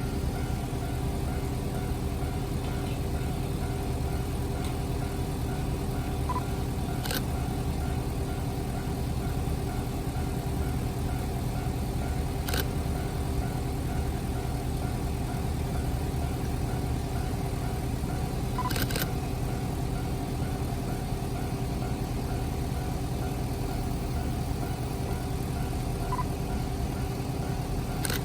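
Diesel engine of a JR KiHa 40 railcar running steadily, a low rumble with a steady hum. A camera's short beep and shutter click sound several times over it.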